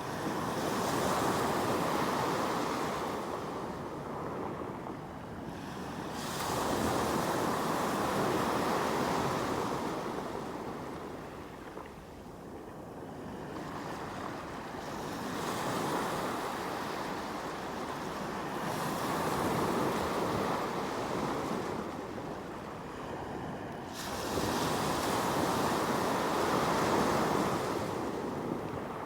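Sea waves breaking and washing on the shore, in about five surges that swell and fade every several seconds.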